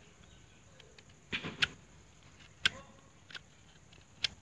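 A utility knife cutting and scraping into the pale core of a log as it is hollowed out: a handful of short, sharp scrapes, two close together about a second and a half in, then single ones at roughly one-second spacing.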